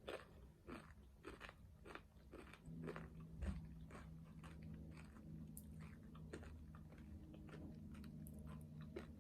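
A person chewing and biting crunchy food close to the microphone, with many small sharp crunches. A faint, steady low hum joins about three seconds in.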